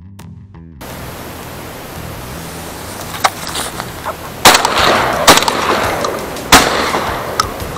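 Steady outdoor noise like wind on the microphone, broken by several sharp knocks. The three loudest come about four and a half, five and a half and six and a half seconds in, with smaller ones between.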